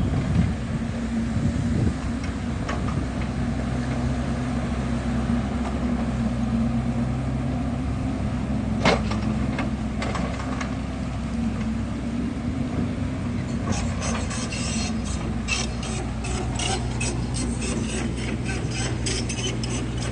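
Kubota U50 excavator's diesel engine running steadily, with a single sharp knock about nine seconds in and a run of rapid metallic clanks and rattles over the last six seconds.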